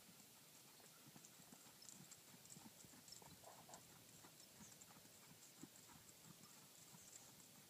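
Faint hoofbeats of a horse moving over arena sand, soft irregular thuds.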